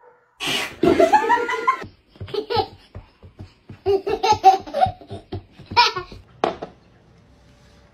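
Hearty laughter in a long run of short bursts, starting about half a second in and dying away shortly before the end.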